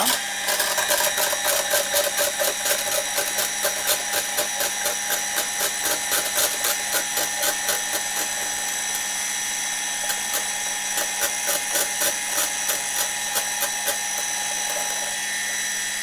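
Arçelik 700-watt hand blender with a whisk attachment running at a steady speed, whipping cream in a plastic beaker until it foams and thickens. A fast, irregular clicking runs over the motor hum throughout.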